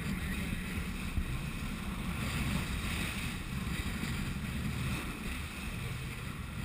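Steady rush of wind on the microphone and water spraying off the hull of a sportfishing boat running at speed, heaviest in the low end.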